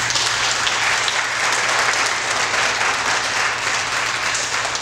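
Audience applauding: dense, steady clapping that eases off near the end.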